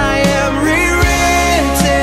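Contemporary Christian worship song playing: a full band with a steady drum beat under held, slightly bending melody notes.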